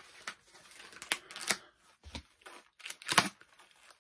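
Plastic-bagged comic books and cardboard packing being handled: scattered rustles and light taps, the loudest a quick cluster about three seconds in.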